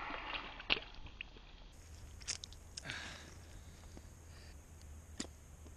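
Close handling noises as a pickerel is lifted out of an ice-fishing hole and held: wet crunching and scraping, loudest in the first second, then a few sharp clicks and taps, quiet overall.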